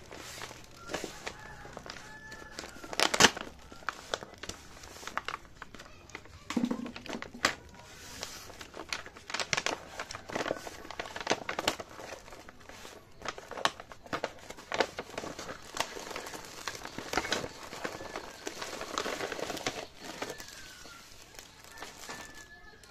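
Kraft paper mailer envelope being cut and torn open and handled, with irregular crinkling and rustling of stiff paper and a loud crackle about three seconds in. Near the end, crinkling of a clear plastic bag of packed t-shirts.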